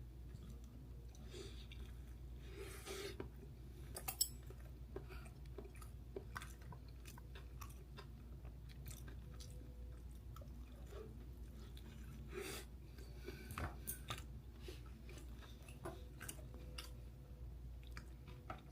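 A person chewing and eating dumplings close to the microphone, with scattered wet mouth smacks and small clicks over a steady low hum.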